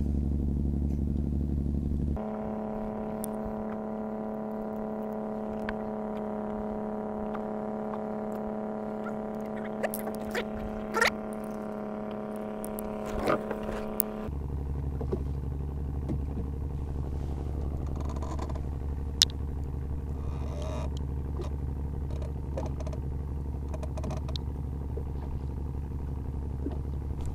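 Small fishing boat's engine running steadily, its note changing abruptly about two seconds in and changing back about halfway through. A few short clicks and squeaks come just before the second change.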